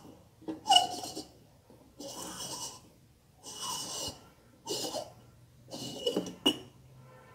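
Glass heat-lamp bulb being unscrewed from its socket in a bathroom heater, turned by hand: five short rasping scrapes about a second apart, one with each twist, and a sharp click near the end.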